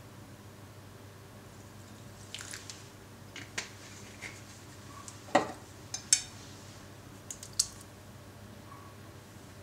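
A few light clicks and glass knocks as a small vanilla bottle is handled and eggs are tipped from a glass into a glass mixing bowl. The loudest knock comes a little past halfway.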